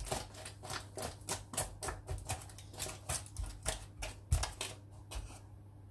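Crumpled baking parchment crackling and rustling under a hand pressing flapjack mixture down into a parchment-lined glass baking dish: quick, irregular crinkles, a few a second, with one soft thump about four seconds in.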